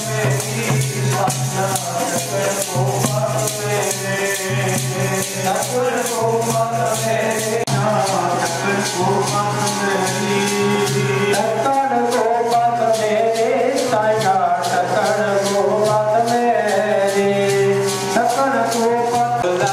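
Devotional singing with a harmonium holding a low drone and a small hand drum beaten in a fast, steady rhythm.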